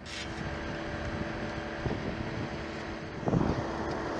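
A steady engine-like hum under a rush of wind noise, with two short louder sounds about two and three seconds in.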